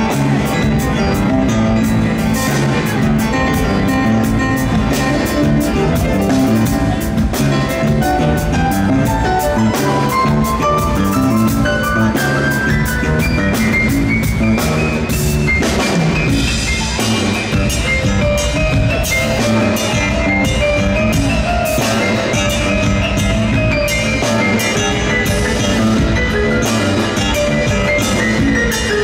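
Live rock band playing loud: a keyboard solo over electric bass and drums. About a third of the way in, the lead climbs in a long rising run of notes.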